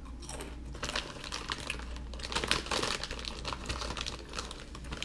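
Crunchy Cheetos being chewed close to the microphone: a rapid run of crisp crunches, followed near the end by the foil chip bag crinkling as a hand reaches in.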